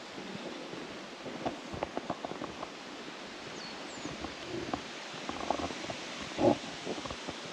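Steady rushing outdoor noise with scattered light clicks and knocks, and one louder thump about six and a half seconds in.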